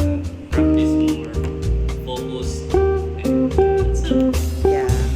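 Background music: a plucked guitar tune over a steady bass line.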